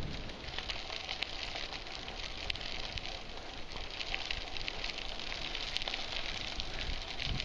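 Hybrid bicycle's 700x32c tyres rolling over a gravel-and-grit path: a steady crunching hiss with many small crackles and clicks from the stones.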